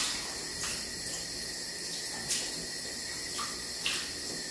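Soapy water sloshing in a plastic basin as a cat is scrubbed during a bath, with a few short splashes over a steady hiss.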